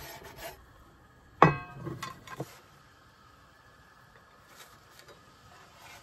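A sharp metallic clink that rings briefly, followed by two lighter knocks, from a knife and camp dishware as a quesadilla is cut and plated.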